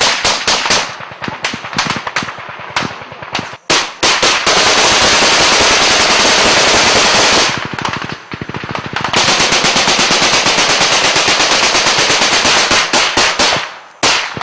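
Loud automatic-weapon fire in rapid bursts. About four seconds in, the fire merges into a long, almost unbroken stream for several seconds. After a short lull it resumes as a steady rapid rattle of shots, which dies away near the end.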